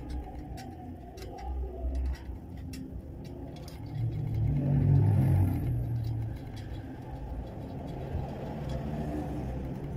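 Street traffic passing close by: a low engine rumble that swells and fades about four to six seconds in as a vehicle goes past. Faint metallic clicks of wire spokes being worked on a motorcycle rim sound now and then.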